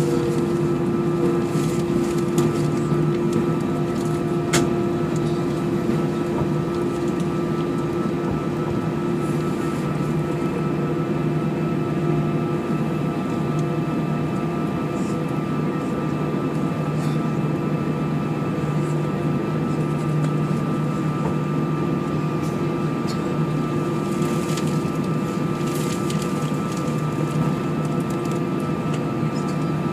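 Airliner cabin noise while taxiing: the jet engines at idle give a steady hum with a few constant tones over a rushing background, unchanging throughout.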